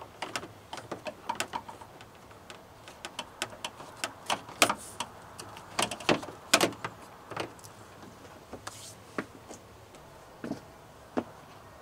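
Irregular clicks and light knocks of a bug deflector being handled and fitted against the front edge of a truck hood, its edge worked under the rubber weather stripping.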